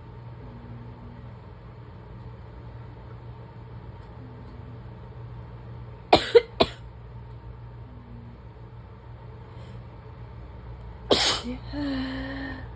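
A person's morning fit of barking asthma cough and sneezes. Three quick sharp bursts come about halfway through, then a louder burst with a drawn-out voiced tail near the end.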